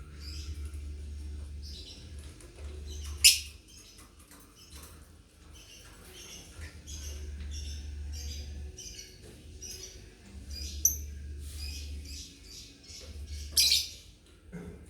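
Lovebirds chattering: a quick, continuous run of short high chirps, broken by three louder, sharp calls.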